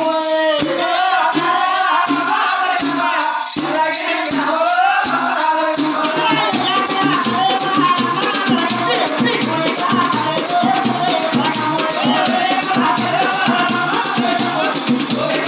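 A folk troupe performing: voices singing a song line over slow, evenly spaced drum beats, then after about six seconds the drum and hand percussion pick up into a fast, dense rhythm.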